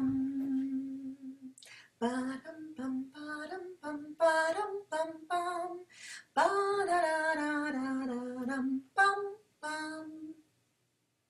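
A woman singing an unaccompanied wordless song in minor tonality on neutral syllables. It opens with a held low note, runs through short notes and a long falling line, and stops about a second before the end.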